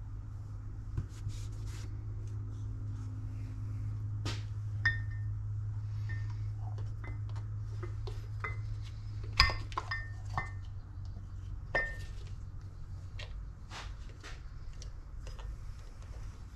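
Brake caliper parts and hand tools clinking and tapping against each other, irregular sharp metallic clinks, some briefly ringing, the loudest about nine seconds in. A steady low hum runs underneath.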